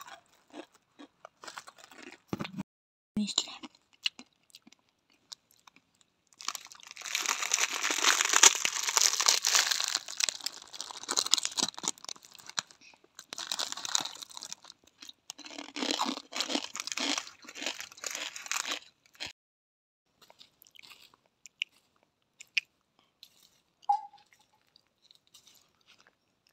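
Dry Wai Wai instant noodles being crushed, crunched and chewed straight from their crinkling foil-lined packet. The crunching and rustling come thickest from about a quarter of the way in to near halfway, and again around two-thirds through, with only scattered small crunches and clicks between and after.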